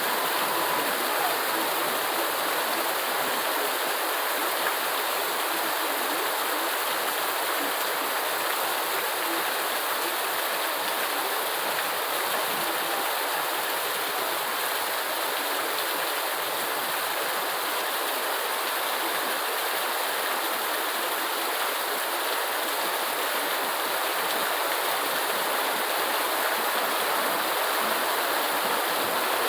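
Heavy rain falling steadily: an even, unbroken hiss of water with no thunder or other separate sounds.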